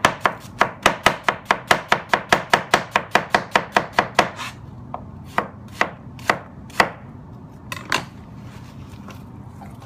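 Chef's knife slicing a halved brown onion on a plastic cutting board: a fast, even run of knife strikes, about four or five a second, for the first four seconds or so, then a handful of slower single cuts that stop about eight seconds in.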